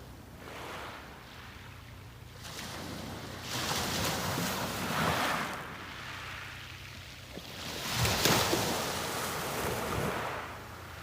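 Sea surf on a beach: waves break and wash up the shore in slow surges, one building about three and a half seconds in and a louder one around eight seconds, each hissing and then fading as the water draws back.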